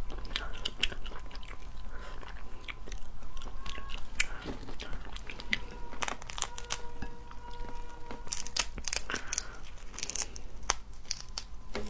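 Cooked crayfish shells being cracked and peeled apart by hand, many sharp, irregular crunchy cracks and crackles close to the microphone.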